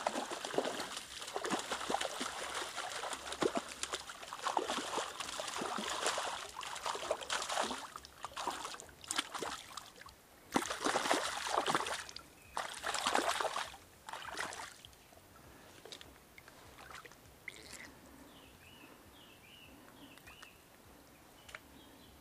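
Stream water splashing and sloshing in irregular spells, loudest in two bursts around ten to fourteen seconds in, then quieting down about fifteen seconds in.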